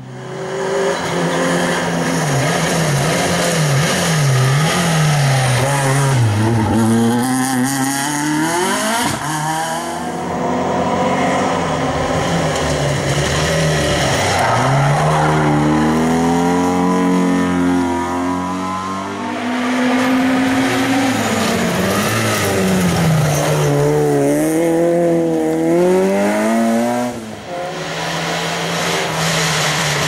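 A historic rally car's engine revving hard through the stage, its pitch climbing and dropping several times as it shifts gears and comes off the throttle for the hairpin. Near the end the sound dips briefly and another car's engine takes over.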